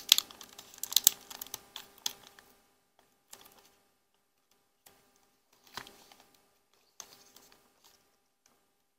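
Adhesive tape being peeled off a laptop battery's connector. It gives a quick run of small crackling clicks over the first two seconds or so, then a few scattered soft clicks.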